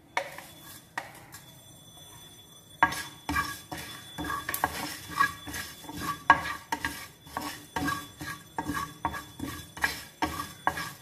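Wooden spatula stirring fennel, cumin and coriander seeds dry-roasting in a nonstick frying pan: repeated short scrapes and knocks against the pan, about two or three a second, from about three seconds in. Near the start, a couple of taps as the coriander seeds are pushed off a plate into the pan.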